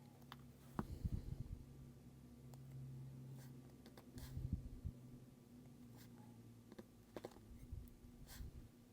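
Faint small clicks and scrapes of tiny watch parts and hand tools being handled on a work mat, in a few short clusters, over a low steady hum.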